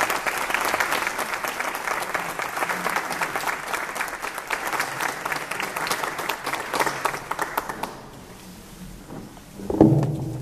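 Audience applauding: dense clapping that dies away about eight seconds in. A voice starts speaking near the end.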